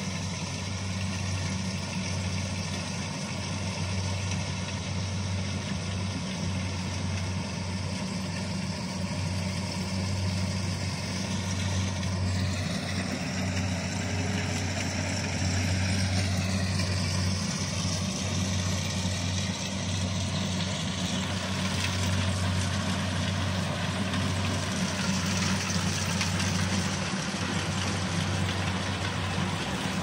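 Kubota DC-70 rice combine harvesters running in the field: a steady, low diesel-engine drone that grows a little louder in the second half as the nearer machine comes closer.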